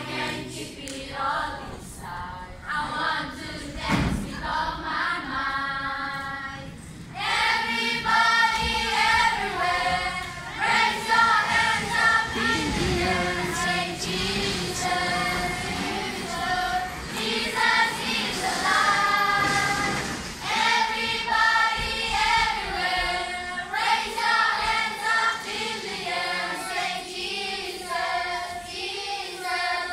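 A children's choir singing a song together, with the voices growing louder and fuller about a quarter of the way in.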